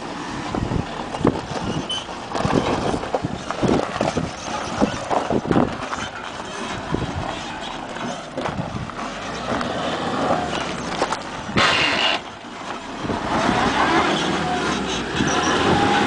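Diesel engine of a Toyota Hilux pickup working at low speed as the truck crawls over rough rocky ground, with many short crunches and knocks. A short loud burst of noise about two-thirds of the way through.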